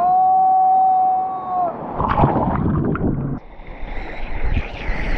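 A long held 'whoo' cheer, steady in pitch for about a second and a half. Then water rushes and splashes around a camera held at the surface as a wave breaks.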